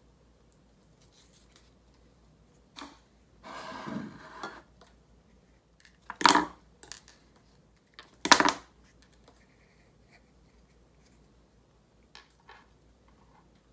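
Hand pruners cutting through tulip stems: two sharp snips about six and eight seconds in, with a second-long rustle of handled stems and leaves before them and a few light clicks near the end.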